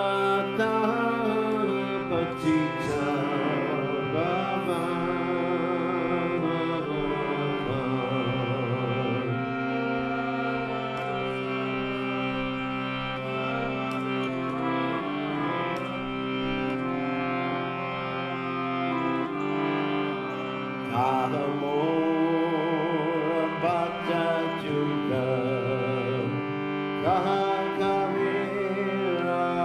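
A man singing a devotional kirtan melody to his own harmonium accompaniment: the harmonium holds steady chords while his voice wavers and ornaments the pitch, phrase after phrase.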